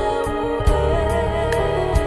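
Background music: sustained held notes with a slow melody over a steady, soft beat.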